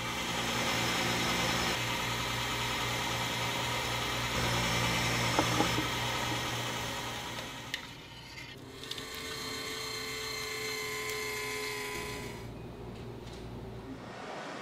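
A small motorized machine running steadily with a whirring, grinding hiss, then a quieter, steadier whine after a couple of sharp clicks about eight seconds in.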